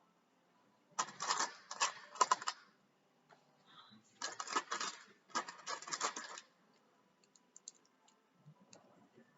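Loose plastic Lego pieces rattling and clicking together as a hand sifts through them, in two bursts of about two seconds each, with a few light clicks after.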